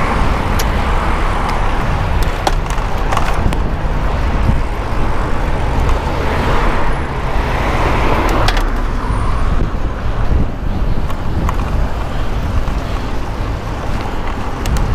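Road traffic heard from a moving bicycle: the noise of passing cars swells and fades, strongest about six to eight seconds in. Underneath is a steady low rumble of wind on the microphone.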